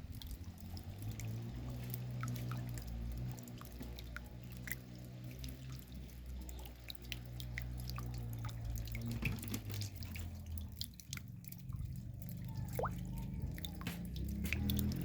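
Raindrops dripping, a scatter of irregular small ticks and plinks, over a low steady droning hum.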